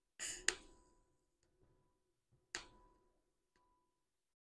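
Two brief crackling bursts about two seconds apart, the first ending in a sharp click, from quick TIG tack welds on thin cold-rolled steel.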